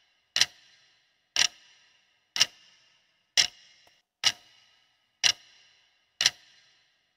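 Clock-tick sound effect of a countdown timer: seven sharp ticks, one a second, each with a short fading tail.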